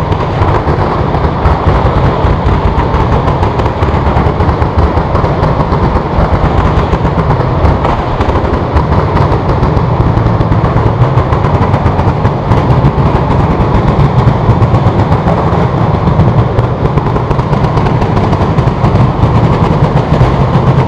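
A long overhead chain of firecrackers (a San Severo 'batteria') going off close by in a loud, continuous, dense rattle of bangs.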